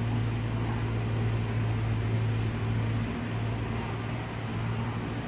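Steady low mechanical hum over a faint background hiss.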